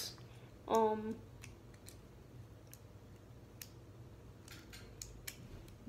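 Faint, scattered clicks of small plastic toy pieces being unclipped by hand from a Bakugan Dragonoid figure as its clip-on Baku-Nano parts are taken off. A short vocal sound about a second in.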